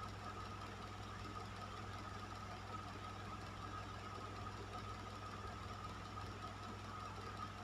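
Electric fan running steadily: an even rush of air over a low motor hum, with a faint whine held on one pitch.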